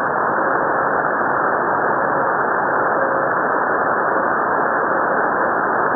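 Steady hiss of receiver static from an SDRplay software-defined radio tuned to CB channel 38 in lower sideband (27.385 MHz), heard in a gap between transmissions. The sound is thin, with nothing above about 2 kHz.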